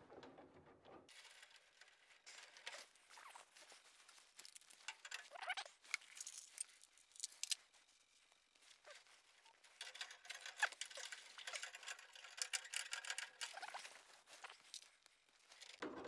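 Faint, irregular light clicks, rattles and rustling of hands handling the wiring and parts inside a gas furnace's burner compartment, quieter for a moment in the middle and busier again in the second half.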